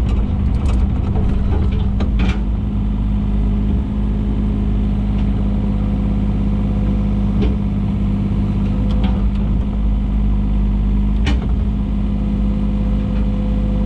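Takeuchi TB125 mini excavator's diesel engine running steadily at working speed, with a few short knocks from the machine at work.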